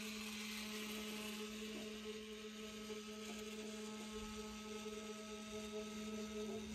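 A steady electrical hum with a high hiss over it, made of one low held tone with fainter higher tones, that cuts off abruptly near the end.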